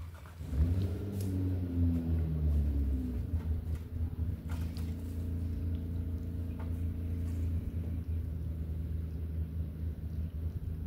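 An engine running, its pitch rising and falling for the first few seconds and then holding steady, with a few light knocks.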